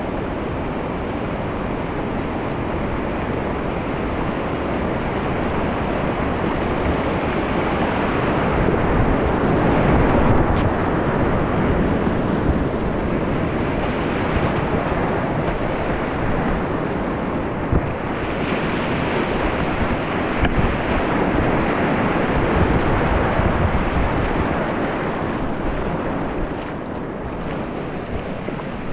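Whitewater of a rocky mountain stream rushing steadily, swelling louder about ten seconds in and again around twenty seconds, then easing near the end.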